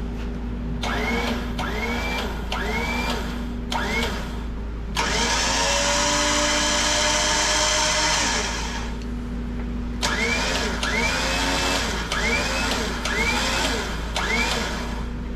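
12 V permanent-magnet DC motor of an X-Bull 13,500 lb electric winch, worked from its remote: five short bursts that each whine up in pitch, a continuous run of about four seconds in the middle, then five more short bursts. A steady low hum runs underneath.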